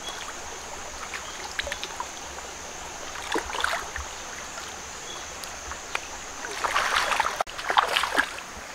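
Shallow stream water flowing with a steady hiss, stirred by hands and feet wading and reaching into it. Splashing flurries about a third of the way in and twice more near the end, the last as a hand slaps into the water.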